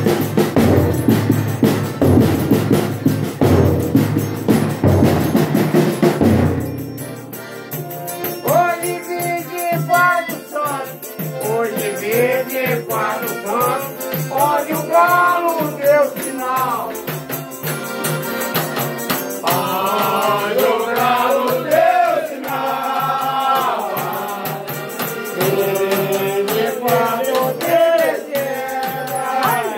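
Folia de Reis music: loud drums and rattling percussion, which drop away about six seconds in to a steadier beat under voices singing a drawn-out chanted melody.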